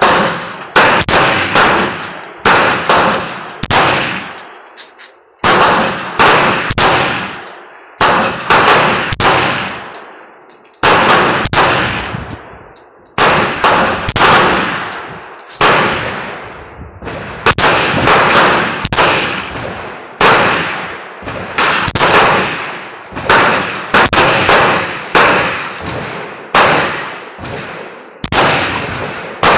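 9mm pistol shots, from a Glock 17 among others, fired one at a time in a long string of about one to two a second with a few short pauses. Each shot is a sharp crack followed by a ringing tail.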